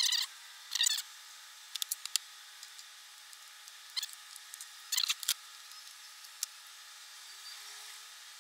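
Short rustles and light clicks of wires and small plastic parts being handled. There are a couple of scratchy rustles in the first second, a few scattered clicks, and another cluster of rustles about four to five seconds in.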